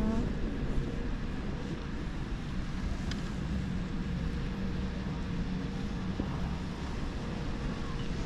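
Steady low rumble of air and wind on the microphone while riding a chairlift, with a faint steady hum.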